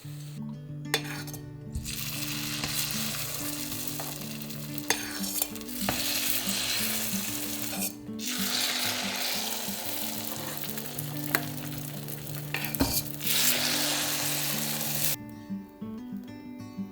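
Food sizzling as it fries in a cast iron pan, with a few sharp clicks of a utensil stirring against the pan. The sizzle breaks off briefly twice and stops about 15 seconds in. Soft background music runs underneath.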